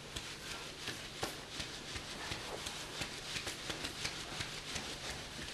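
Couscous sieve with a wooden rim being worked over a metal tray to sift loose flour from hand-rolled couscous grains: a soft rustling hiss with light, irregular taps and clicks, several a second.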